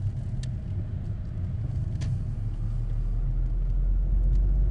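Mazda MX-5 Miata's four-cylinder engine and road rumble heard from the open cockpit while driving, with wind on the top-down car, growing gradually louder. Two light clicks come about half a second and two seconds in.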